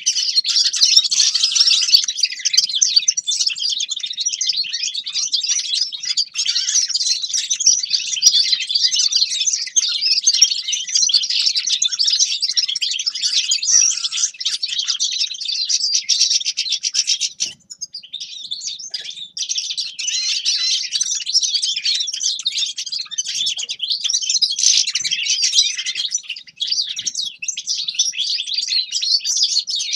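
Grey-crowned goldfinch singing: a fast, continuous twittering song of high chirps and trills, with one brief pause a little past the middle.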